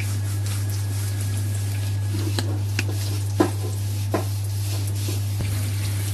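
A steady low hum with light hiss, and a few short clicks and taps of a spoon and sauce bottles being handled over a wok, the sharpest a little past the middle.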